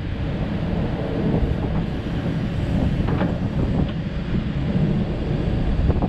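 2014 Takeuchi TB1140 excavator's engine running under load as the boom, arm and bucket are worked. Wind buffets the microphone, and a few short knocks come through.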